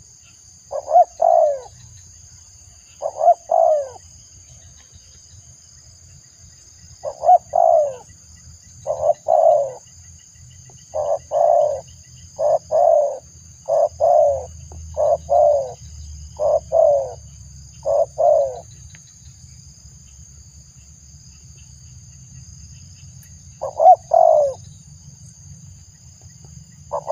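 Spotted dove cooing: about a dozen short, two-part coos repeated every second or two, with a pause of several seconds before the last one.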